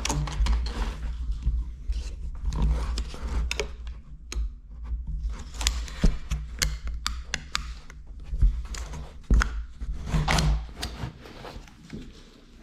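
Handling a metal strap-tensioning tool and feeding poly strap into it: irregular clicks, knocks and rattles with rubbing and handling noise, the sound cutting off suddenly at the end.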